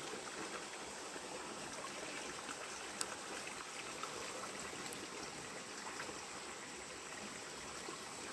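Small stream flowing steadily, an even rush of water, with one faint click about three seconds in.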